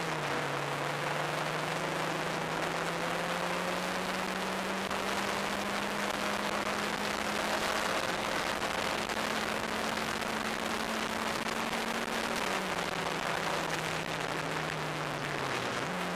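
Turbocharged engine of an open-cockpit track car pulling hard along a straight, its note climbing slowly, then dropping back about three-quarters of the way through as the car slows and rising sharply at the very end on a downshift. Heavy wind rush over the open cockpit.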